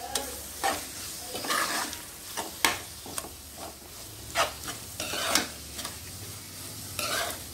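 Spatula scraping and stirring scrambled egg and chopped vegetables around a steel frying pan, several irregular scrapes over a light sizzle of frying.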